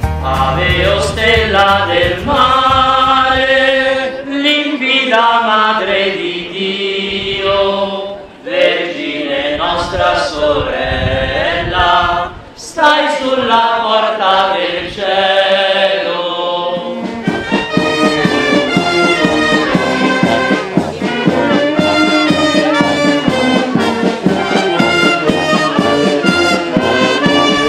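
Band music with brass instruments playing a slow melody; about 17 seconds in it changes to a brisker tune with quicker notes.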